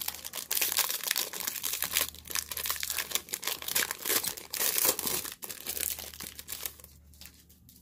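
Foil wrapper of a baseball card pack crinkling and tearing as it is pulled open by hand, a dense crackle that dies away near the end.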